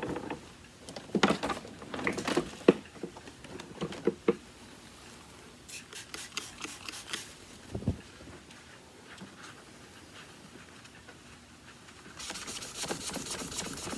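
Scattered clicks and knocks of the plastic vacuum being handled, then, about three-quarters of the way in, steady rubbing as the Kenmore upright's housing is scrubbed to take off paint marks.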